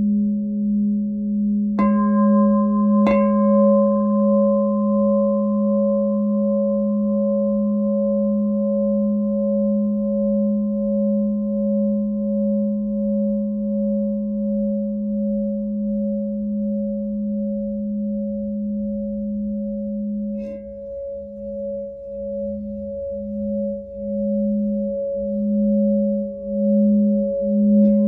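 Lemurian Seed platinum glass singing bowl ringing with a sustained low hum and several higher overtones. It is struck twice a couple of seconds in, again about two-thirds of the way through, after which the low hum pulses in a slow wavering beat, and once more at the end.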